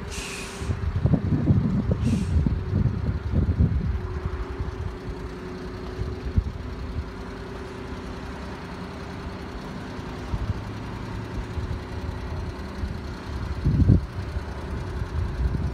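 A vehicle engine running steadily, with wind rumbling on the microphone in the first few seconds and again near the end. Two short high hisses come about two seconds apart near the start.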